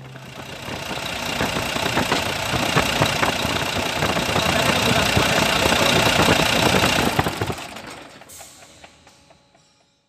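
Volvo D11 six-cylinder diesel engine running with a dense clatter, now turning freely after the jammed idler pulley was refitted the right way round. It swells over the first couple of seconds and fades away over the last two or three.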